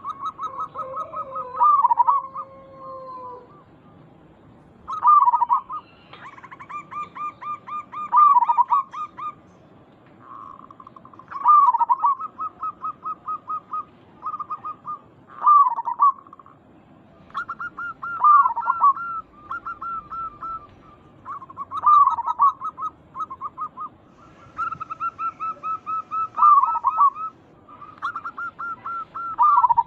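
Zebra dove (perkutut) singing: repeated cooing phrases, each a rapid run of short staccato notes with louder swooping coos, coming about every three seconds with short pauses between them.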